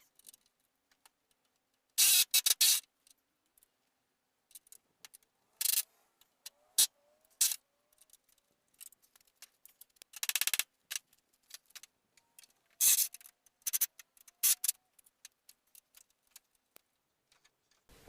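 Impact wrench run in short bursts of about half a second to a second, five or six times, driving bumper bolts, with single metallic clicks and rattles between. The bolts are binding: the owner thinks they are cross-threaded.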